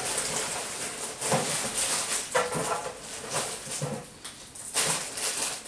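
Rustling and handling noise as Christmas baubles are rummaged for and picked up, irregular and hissy, with a few brief squeaks, one about two and a half seconds in.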